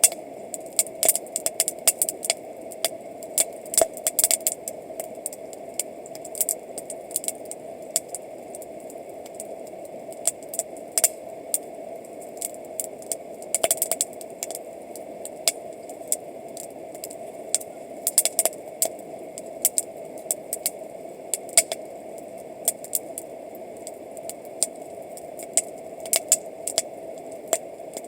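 Wood campfire crackling, with irregular sharp pops, some in quick clusters, over a steady background noise.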